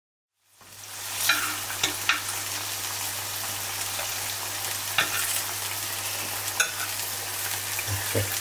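Sliced potatoes deep-frying in hot oil: a steady sizzle with scattered crackles and pops, starting about half a second in, over a steady low hum.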